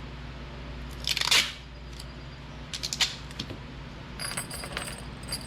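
A short rip of adhesive tape pulled from the roll about a second in, then a few small clicks and a light metallic rattle near the end as the tailgate chain and fish tape are handled.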